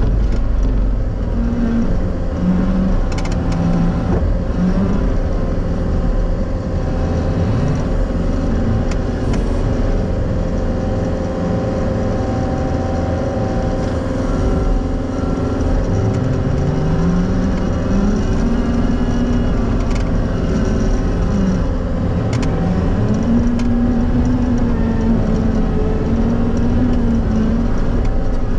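Diesel engine of a John Deere 333G compact track loader running steadily while the machine is driven. Its pitch rises and falls a couple of times past the middle as the engine speed changes, with a few light clicks.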